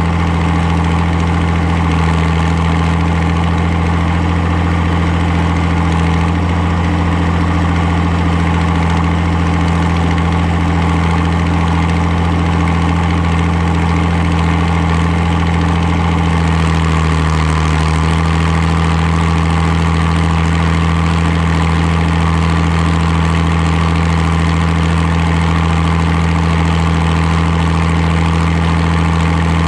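Farmall 560 six-cylinder diesel tractor engine running steadily, with a brief dip in engine speed about halfway through.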